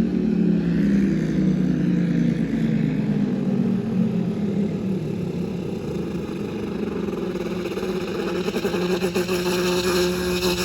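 A vehicle engine running steadily, loudest in the first half. A fast pulsing sound joins in about eight seconds in.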